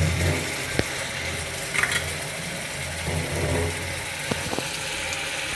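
Rui fish curry simmering and sizzling in a kadai on a gas stove, a steady hiss over a low steady hum, with a few light clicks.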